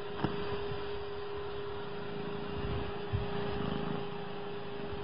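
Domestic cat purring close to the microphone, a low uneven pulsing, over a steady electrical hum, with two faint clicks.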